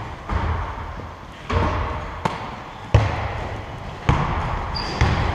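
Basketball bouncing on a gym court floor: a handful of separate thuds at uneven intervals of about a second, with a brief high squeak near the end.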